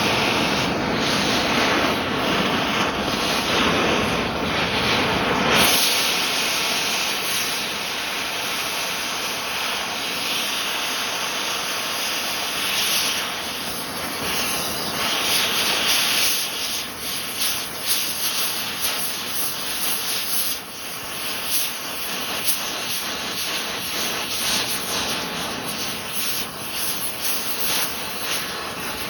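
Oxy-acetylene torch flame hissing steadily as it melts a pistol. About six seconds in, the deep rumble drops away and the hiss turns brighter and thinner, then goes on with small rises and falls.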